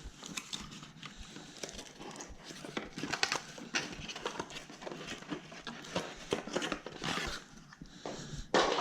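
Hands handling electric-scooter parts and packaging: scattered small clicks and light knocks with bursts of rustling, and a louder rustle near the end.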